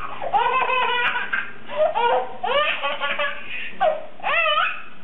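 A baby laughing hard in about five short, high-pitched bursts, at a dog nuzzling up to it.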